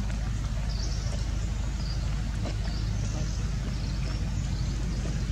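Steady low rumble, with faint high chirps now and then.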